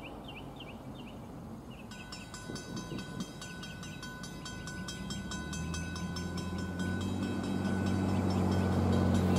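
Diesel engine of an approaching SD70ACe freight locomotive, a low steady drone that grows louder from about five seconds in. Birds chirp in the first second or two, and a bell starts ringing rapidly about two seconds in.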